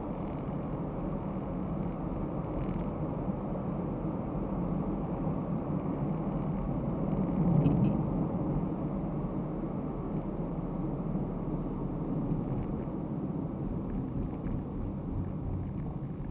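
Steady tyre and engine rumble of a moving car, heard inside its cabin, swelling briefly about halfway through.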